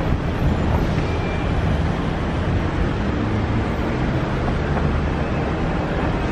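Steady city street noise: a continuous low rumble of traffic with no distinct events.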